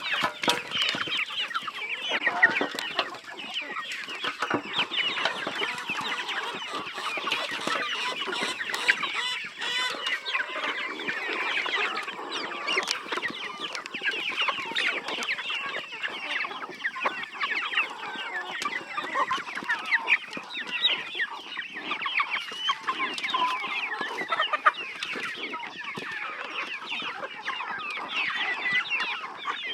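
A flock of chickens clucking, many birds calling over one another without a break.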